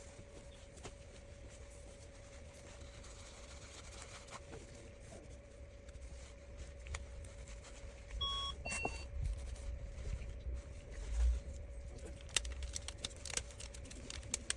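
Faint clicks and taps of a phone's new LCD assembly being pressed and handled on the repair bench, over a faint steady hum, with one short two-tone electronic beep about eight seconds in.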